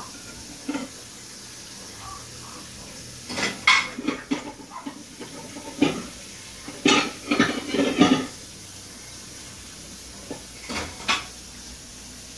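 Two Shiba Inu puppies play-fighting, giving short, irregular growls and yaps, with a dense cluster of them about seven to eight seconds in.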